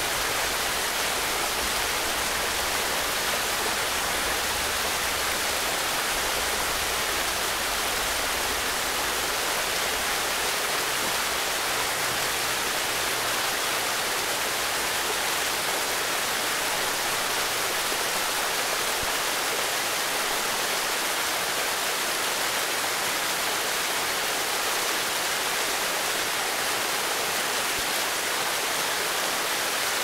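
Waterfall cascading in steps down a mossy rock gully: a steady rush and splash of falling water. Under it, in roughly the first third, a low rumble of road traffic on a bridge about 100 m away.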